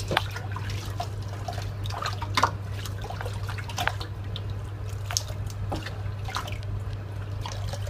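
Water scooped with a plastic bowl and poured over a wet puppy in a stainless steel kitchen sink, splashing and dripping again and again as the shampoo is rinsed out of her coat, over a steady low hum.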